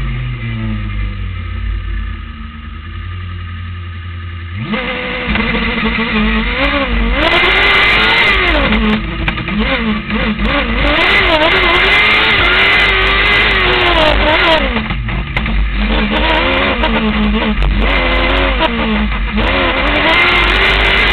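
Formula SAE race car engine heard onboard while driving: the engine note falls and stays low for the first few seconds, then the throttle opens sharply about four and a half seconds in and the engine revs up and down over and over as the car accelerates and slows through the turns.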